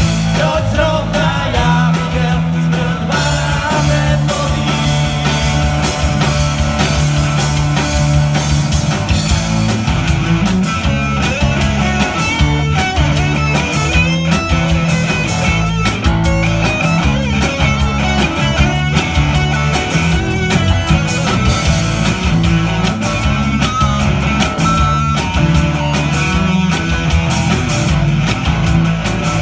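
Live rock band playing through a PA: electric guitars over bass and drums, loud and continuous.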